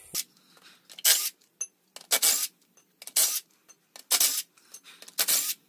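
Cordless impact driver run in short bursts, about once a second, hammering loose the bolts of the oil pickup tube inside a Kubota V2203 diesel's crankcase.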